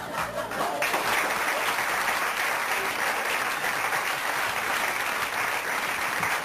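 Studio audience applauding. The clapping swells in sharply about a second in and then holds steady.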